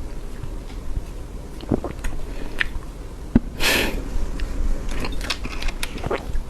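Close-miked eating of soft cream cake: wet chewing with scattered mouth clicks and smacks. Just past halfway there is one short, louder rushing sound, about half a second long.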